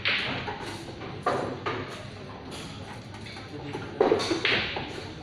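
Pool balls clacking against each other and against the cushions from several tables, a few sharp knocks with the loudest about four seconds in.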